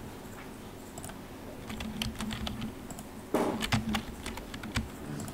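Computer keyboard keys and mouse buttons clicking in short irregular clusters, the loudest and busiest run a little past halfway, over a faint steady low hum.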